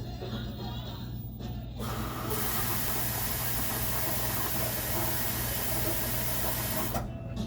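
LG commercial washing machine running with a steady low hum, and a loud hiss of rushing water from about two seconds in, cutting off near the end.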